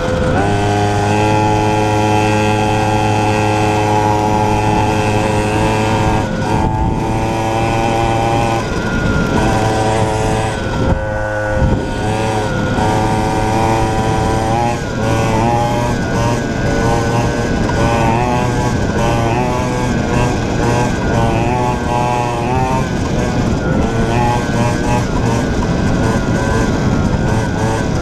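49cc two-stroke mini cross bike engine running under throttle while being ridden. Its pitch holds steady at first, drops briefly midway as the throttle is let off, then rises and falls repeatedly as the rider works the throttle.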